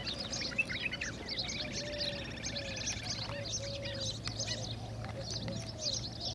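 Several small birds chirping, with a fast trill a couple of seconds in. Short, lower-pitched bird calls repeat underneath.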